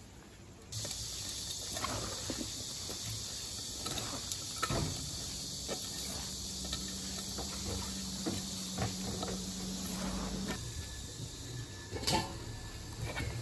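Hands tossing cut napa cabbage and greens with seasoning in a stainless steel bowl: soft wet rustles and scattered light knocks, over a steady high hiss that sets in just under a second in.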